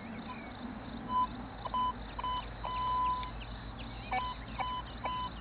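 Metal detector beeping as its coil passes over a mineralised ore stone: a run of short and longer electronic tones, one steady pitch with brief dips, starting about a second in and again near the end. It is a false signal from the rock, and the detector's ground balance has to be reset.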